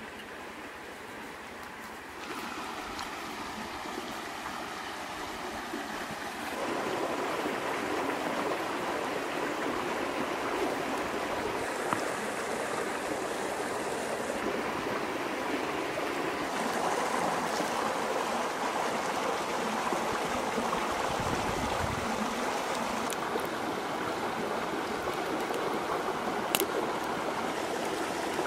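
Steady rush of a shallow stream running over stones, getting louder at about two seconds in and again a few seconds later, with a single sharp click near the end.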